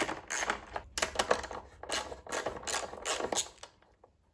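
Socket ratchet clicking in quick runs, about three a second, as it undoes 10 mm nuts on a lawnmower engine's recoil starter cover. The clicking stops about three and a half seconds in.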